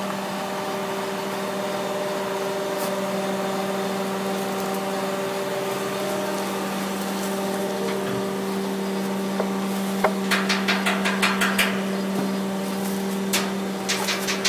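Truck-mounted crane's engine running steadily while it lifts a small ferry on slings. About ten seconds in a rapid run of knocks starts, about six a second, stops, then starts again near the end.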